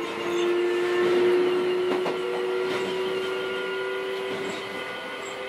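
Keio 7000 series electric train heard from inside a passenger car: a steady whine from the motors and gears rises slowly in pitch over the rumble of wheels on track as the train gathers speed. A couple of clacks from rail joints come about two seconds in.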